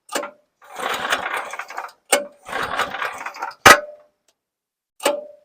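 Small gasoline engine of a Frontier portable bandsaw mill starting up with the choke set, heard in broken bursts of about a second with sudden dead-silent gaps where the recording drops out, and a sharp click a little before the end.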